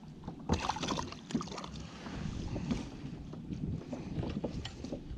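Wind buffeting the microphone over a kayak on open water, with scattered light knocks and clicks from the hull and gear and some splashing as a hooked fish is brought alongside.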